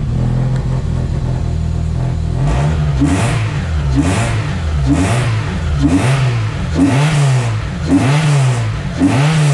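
A car engine idling, then from about two and a half seconds in revved briefly about once a second, seven blips in all, each rising and falling in pitch, with the throttle worked by hand in the open engine bay.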